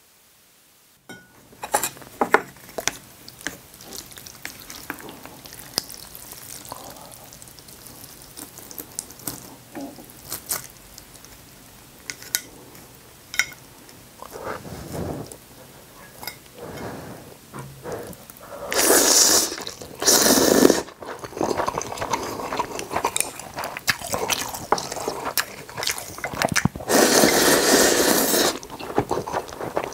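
Close-miked eating of seaweed-soup ramen: wooden chopsticks clicking against the bowls and noodles dripping and splashing in broth, then loud slurps of noodles twice about two-thirds through and a long slurp of broth from a small bowl near the end.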